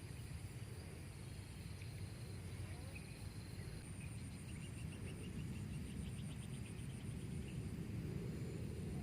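Outdoor nature ambience: insects trilling steadily at a high pitch, with a quick run of short chirps about halfway through and a low steady rumble underneath.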